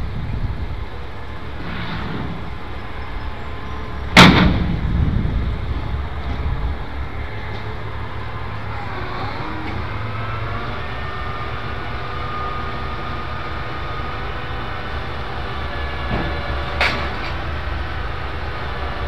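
Steady low rumble of a diesel crane truck running at the curb, with one loud sharp bang about four seconds in and a lighter knock near the end.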